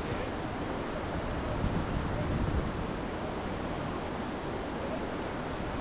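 Steady rushing of whitewater river water.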